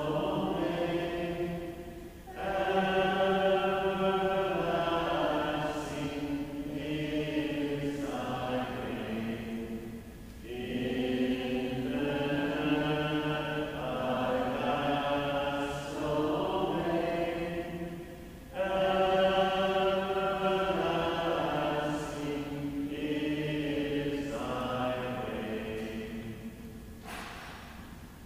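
Voices singing the entrance hymn of the Mass, phrase after phrase with short breaks between lines. The singing fades out about a second before the end.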